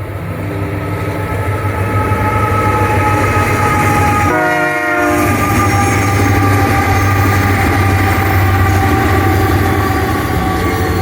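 Train passing close by with its horn sounding in long, loud held chords over a steady low rumble.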